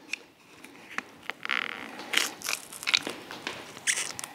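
Irregular clicks, rattles and short scrapes of an old backup-camera and light fixture being pried off the camper siding and handled as its small parts come loose.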